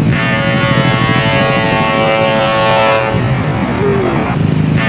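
Ship-style air horn on a large road vehicle sounding a long, steady blast of about three seconds, then a second blast starting near the end, over the rumble of the vehicle's engine.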